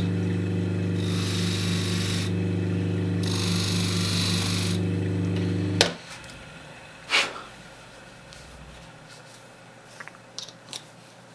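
AVE-052-4MU3 capacitor-run induction motor of a bench buffing machine humming steadily, with three spells of rubbing as a steel wood-carving cutter is pressed against the paste-charged polishing wheel. Just before halfway a switch clicks and the hum cuts off; a thump follows about a second later, then a few faint small clicks.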